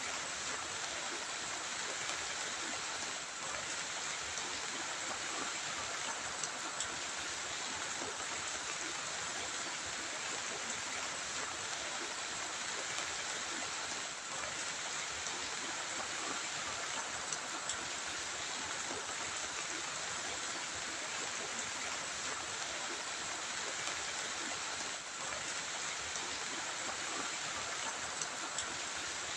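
Steady hiss of heavy rain falling, with a few faint drop ticks.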